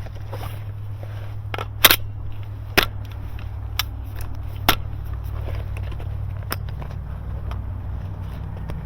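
Airsoft gunfire: about seven sharp snaps at irregular intervals, the loudest about two seconds in, over a steady low rumble.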